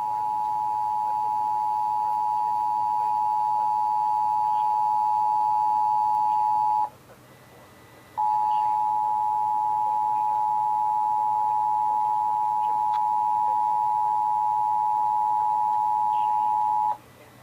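Emergency Alert System attention signal: the steady two-pitch dual tone (853 and 960 Hz) sounding in two long blasts of about eight seconds each, with a gap of about a second between them. It marks the start of an EAS alert, here a Required Monthly Test.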